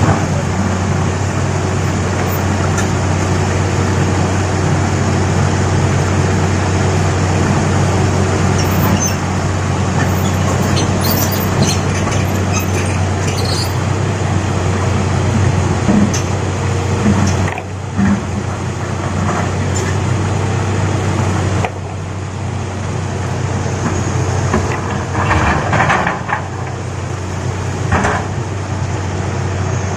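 Heavy diesel engine of an excavator running steadily under load, with scattered knocks and clanks of rock and metal as boulders are loaded into a dump truck.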